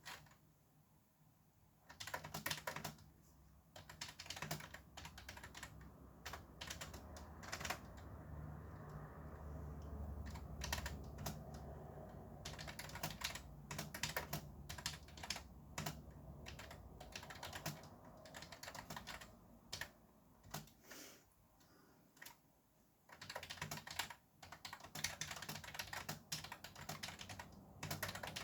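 Fast typing on a computer keyboard: runs of rapid key clicks broken by short pauses at the start and again a little past two-thirds of the way through. A low traffic rumble sits underneath and swells for a few seconds about a third of the way in.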